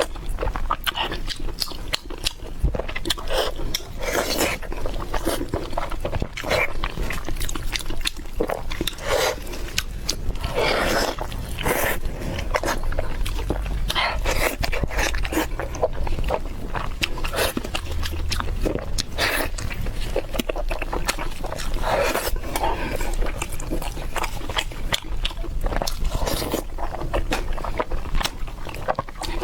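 Close-miked chewing and lip-smacking of red-braised pork belly, with wet, sticky mouth sounds and many small irregular clicks.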